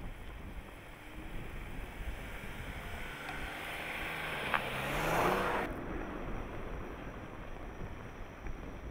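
Jeep Cherokee's engine rising in pitch as the SUV drives up and passes close by on snow, growing louder and then cut off suddenly a little past halfway. Wind buffets the microphone throughout.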